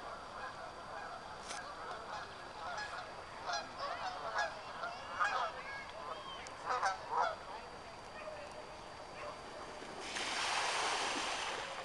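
Canada geese honking, a flurry of short calls through the middle, followed near the end by a broad rush of noise that swells and fades.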